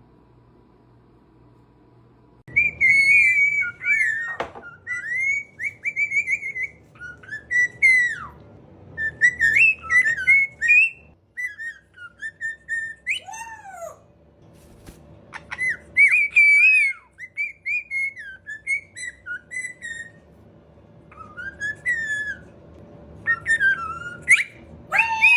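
Pet parrot whistling: a long run of quick, warbling whistled phrases that slide up and down. It starts a couple of seconds in and has a short pause about halfway through.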